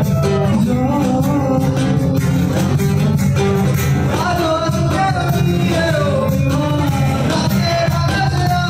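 Live acoustic band playing: two acoustic guitars, bass guitar and cajon, with a male voice singing over them.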